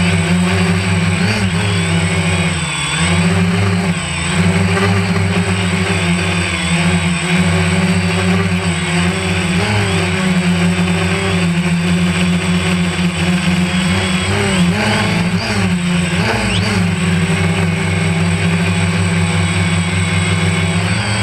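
DJI Phantom 1 quadcopter's motors and propellers buzzing steadily, the pitch wavering up and down as the motors change speed.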